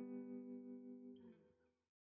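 Background music: a held guitar chord slowly fading, dying away in the last half second and ending in silence.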